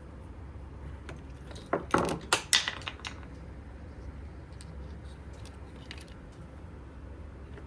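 AA batteries and small plastic parts of a toy projector being handled: a quick run of loud clicks and clatters about two seconds in, then a few faint ticks.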